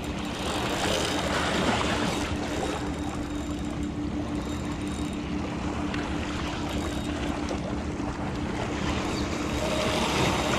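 Wind on the microphone and waves lapping at the water's edge, with a steady low hum under it.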